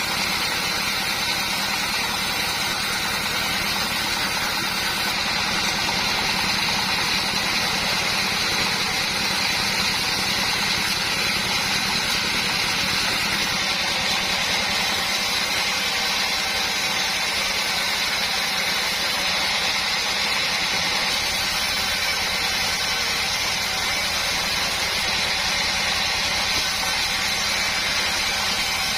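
Sawmill machine running steadily: a continuous engine drone with a steady high whine above it.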